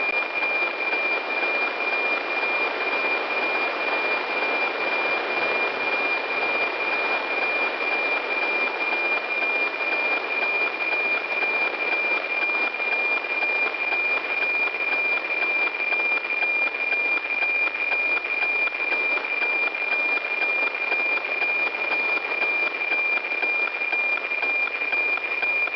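NOAA-19 weather satellite APT signal received by radio: a steady 2.4 kHz tone inside a hiss of static, with a fine regular ticking pulse running through it.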